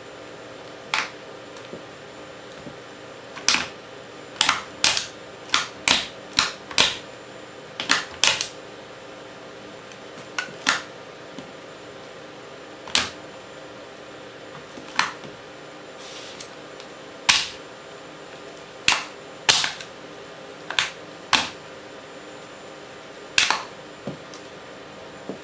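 Cowboy boot heels stamping on a small black plastic gadget on a hard floor: a series of sharp cracks and clacks, about twenty of them at irregular intervals, some in quick pairs.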